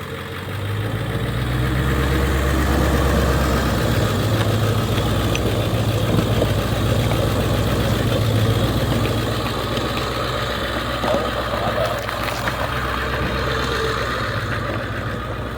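Ford Econoline van's engine running at low revs as the van creeps along a rocky trail: a steady low drone that swells about a second in and holds, with a few faint clicks.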